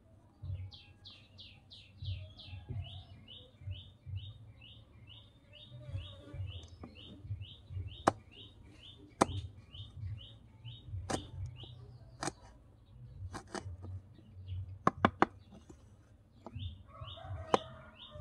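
Small knife slicing a green chili on a wooden cutting board, giving sharp taps, several in the second half and a quick triple about two thirds in. Behind it, a bird calls a rapid run of short downward-sliding chirps, about three a second, through the first half and again near the end.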